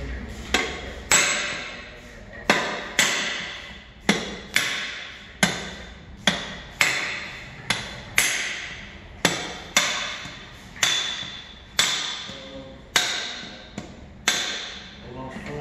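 Hammer blows on a steel punch held against an Opel Vectra's removed oil pan: about twenty sharp metallic strikes at an uneven pace, each ringing briefly.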